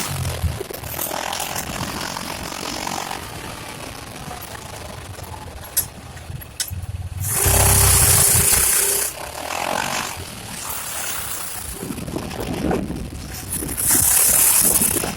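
Honda Pioneer 700-4 side-by-side's single-cylinder engine running as it is driven off-road. Two loud bursts of noise come over it: one about seven seconds in lasting nearly two seconds, another near the end.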